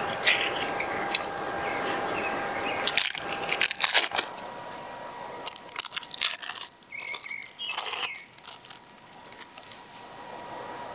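Thin plastic film crinkling and rustling close up as individually wrapped processed cheese slices are peeled out of their wrappers, in several short bursts of crackling.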